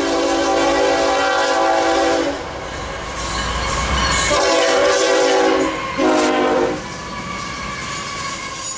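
Diesel freight locomotive's air horn sounding a chord of several notes: a long blast, then after a pause another long blast and a short one. Underneath is the rumble and clatter of the approaching train.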